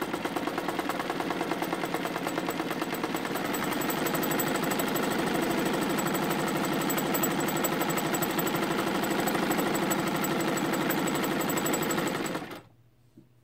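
Vintage Emdeko mechanical sewing machine running steadily with rapid needle strokes. It is sewing a cam-driven decorative stitch set to a short stitch length, giving a dense satin-like stitch. It gets a little louder about four seconds in and stops shortly before the end.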